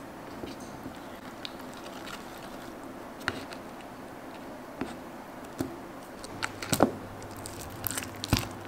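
Wooden craft stick stirring freshly activated glue slime in a plastic bowl, with faint scraping. About six seconds in, a run of sharp clicks and taps begins.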